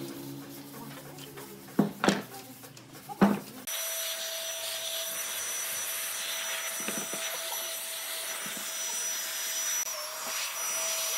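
A few wooden knocks, then a handheld electric blower switches on about three and a half seconds in. It runs steadily with a whine, and its pitch dips briefly near the end.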